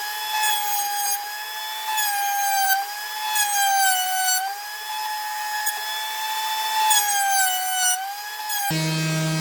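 Electric motor whining at a high pitch that sags and recovers several times, while the vacuum-driven cyclone dust collector is being tested.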